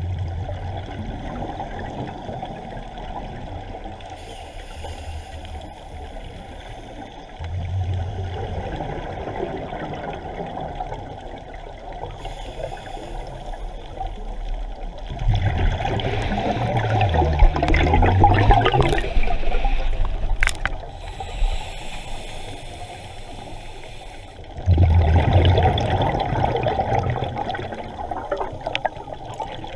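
Scuba regulator breathing heard underwater: a diver's exhaled bubbles come out in four gurgling bursts, the longest about halfway through, over a steady underwater hiss.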